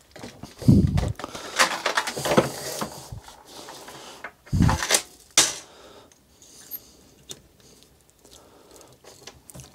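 Metal parts of a homemade lure retriever (wire and chain) being handled and worked on a bench: scattered clinks and rattles with two dull thumps, one near the start and one about four and a half seconds in, then quieter handling.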